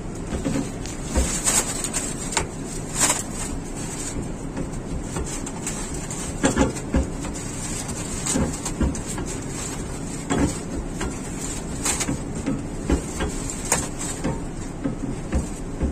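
Irregular knocks and clicks of branch pipes being fitted and tightened onto a cooling tower's sprinkler hub assembly, over a steady background noise.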